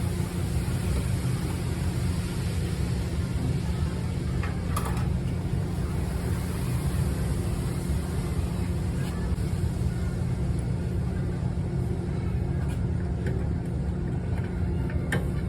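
Car driving on the road: a steady low rumble of tyre, road and drivetrain noise with a few light clicks.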